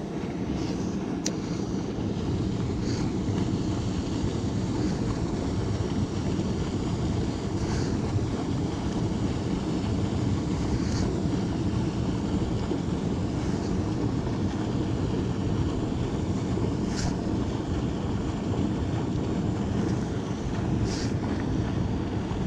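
Steady rush of water pouring through a lake spillway, a constant low noise with a few faint clicks over it.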